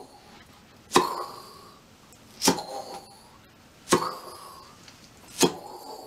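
Mouth imitation of a tennis ball hit back and forth in a rally: four sharp lip pops about every second and a half, each made by pulling the lower lip from under the upper teeth and followed by a short blown echo, alternating between two notes for the two players.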